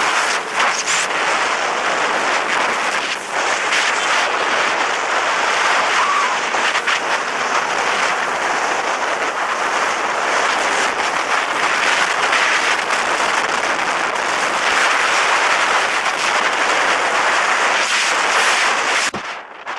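Wind rushing over the microphone of a camera carried on a moving motorcycle: a loud, steady roar of noise with irregular buffeting pops. It cuts off abruptly near the end.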